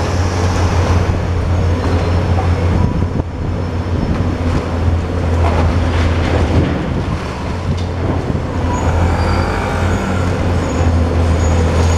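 Long-reach demolition excavator's diesel engine running steadily under load, with crunching and crumbling as its hydraulic jaws bite through concrete walls and rubble falls.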